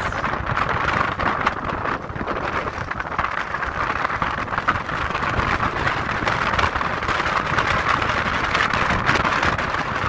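Chevrolet Colorado pickup driving over a rough dirt and gravel track: a steady rush of tyre and road noise with constant crackling from loose stones under the tyres, mixed with wind noise.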